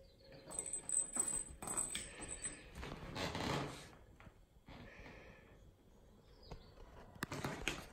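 Knocks and rustling of a kitten scuffling on a wooden parquet floor while grabbing and batting a plastic lattice toy ball, with a faint high ringing over the first couple of seconds. There is a short rustling scuffle about three seconds in and a few more knocks near the end.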